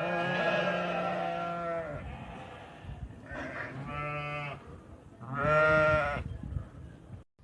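Sheep bleating three times: a long bleat of about two seconds, then two shorter ones, the last the loudest.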